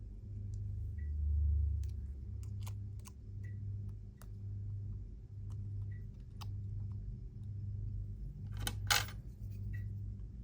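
Small tools and tiny parts clicking and tapping during a phone repair, a scattering of light metallic clicks with a louder quick rattle of clicks about three-quarters of the way through.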